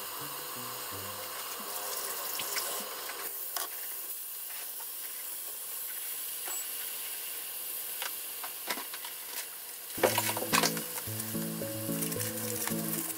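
Chicken tsukune meatballs on burdock skewers sizzling in oil in a frying pan, a steady hiss of pan-frying. About ten seconds in comes a short burst of clicks and rustling.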